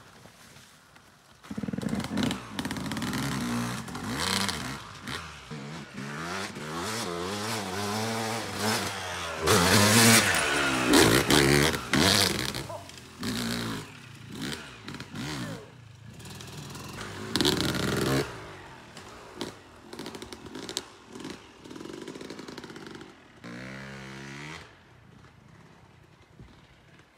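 Two-stroke dirt bike engine revving in repeated bursts of throttle, rising and falling in pitch, loudest about ten seconds in. A last short rev comes near the end, then the engine fades away.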